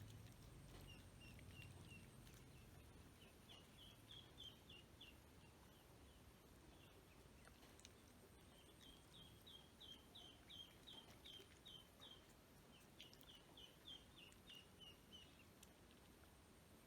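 Ducklings peeping faintly: runs of short high peeps, several a second, coming in bursts of a few seconds each.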